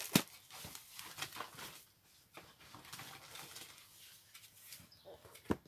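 A sharp knock as a cardboard box of envelopes is set down on a desk, then faint rustling of handled packaging, and another sharp knock near the end.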